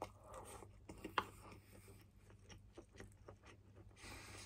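A man chewing a mouthful of rice, with scattered light clicks of chopsticks against the bowl, the sharpest about a second in.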